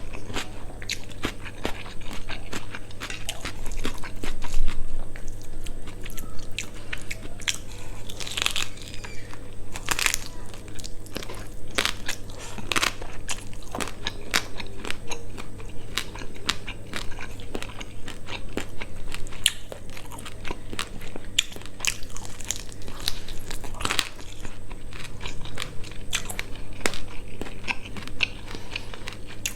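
Close-miked eating: irregular wet chewing and crunching, with sharp clicks and smacks, while quail meat with rice and salad is eaten.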